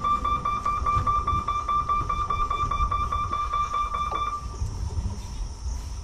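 Level crossing warning alarm sounding a rapidly pulsing high beep, which cuts off about four seconds in. A low rumble runs underneath.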